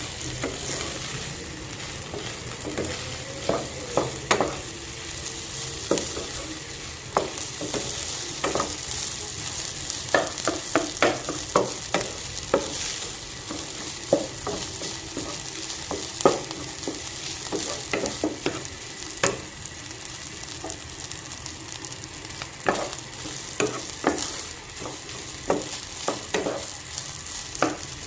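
Fried rice sizzling in a hot pan while it is stirred and tossed, with frequent sharp clacks and scrapes of the utensil against the pan over a steady frying hiss.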